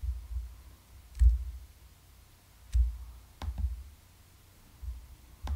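Computer mouse button clicking a few times, single sharp clicks a second or two apart, each with a dull low thump, as menu items are chosen.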